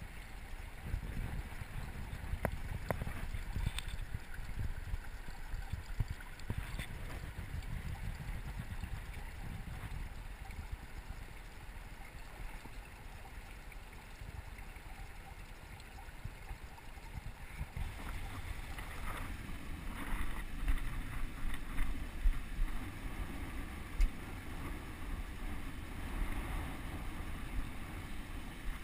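Stream water rushing, heard muffled and low through a camera held underwater, with a few soft knocks. It grows louder and fuller about two-thirds of the way through.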